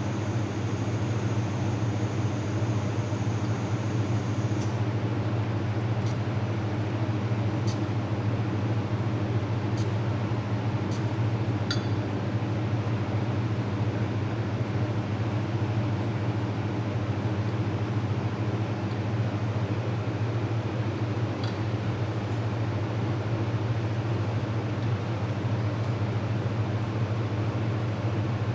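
Fiber laser welding machine running with a steady low electrical hum. A high-pitched whine cuts off suddenly about five seconds in, and a few light clicks follow.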